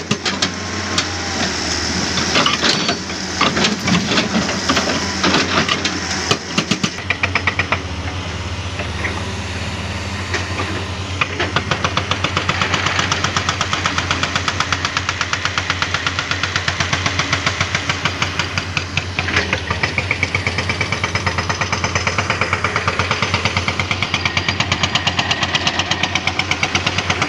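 Jackhammer breaking rock: rapid, steady hammer blows over a running engine. The first few seconds are more irregular, with louder separate cracks and knocks, and the pounding settles into an even fast rhythm about seven seconds in.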